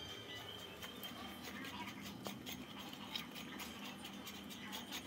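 A poodle sniffing and licking along a tiled floor for the last crumbs of its food, making faint, quick, irregular snuffles and small mouth clicks.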